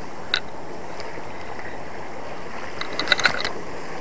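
Spinning reel clicking, with one click near the start and a quick flurry of ticks about three seconds in, over a steady wash of sea and wind.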